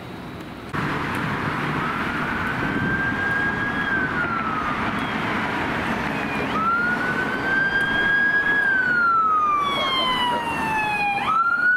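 Electronic siren of a fire battalion chief's pickup sounding a wail, its pitch rising and falling slowly, then jumping abruptly back up near the end, over traffic noise. The first second is quieter street noise before the siren comes in.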